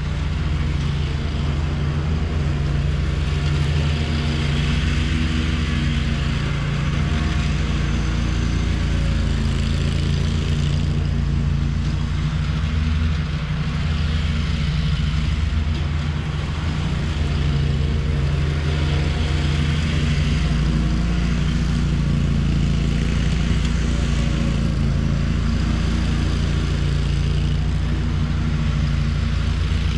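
Lawn mower engine running steadily at an even speed, a constant low hum with a hiss above it that swells and fades every few seconds.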